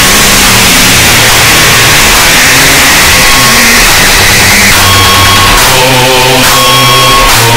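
Loud, heavily distorted tearout dubstep: a dense wall of noisy synth bass that breaks, over the last couple of seconds, into choppy pitched bass stabs in a stuttering rhythm.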